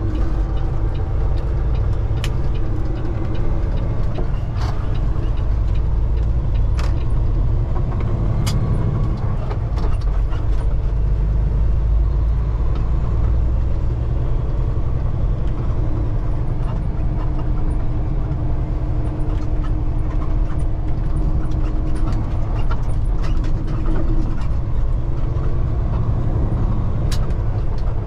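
Semi-truck cab noise while driving: a steady, deep rumble of the diesel engine and tyres on the road, with a few sharp clicks or rattles from the cab.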